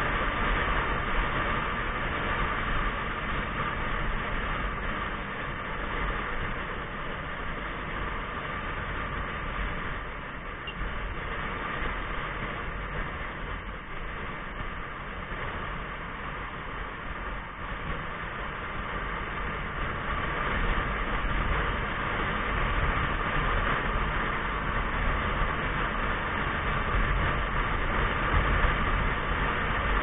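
Motorcycle riding in traffic, heard through an action camera: a steady rush of wind and road noise over the running engine, dipping slightly in the middle.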